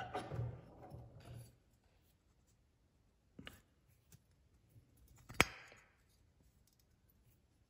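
Metal moped engine parts (crankcase and cylinder) being handled. Faint rubbing for the first second and a half, then a few light knocks and one sharp metallic click about five and a half seconds in.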